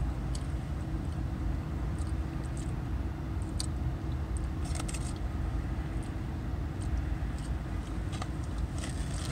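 Steady low rumble and hum inside a parked car's cabin, with a few small clicks and rustles, the loudest about three and a half and five seconds in.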